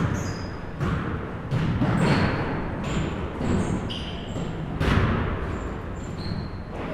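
Pickup basketball in a gym: the ball bouncing and thudding on the court, several times, mixed with short high sneaker squeaks.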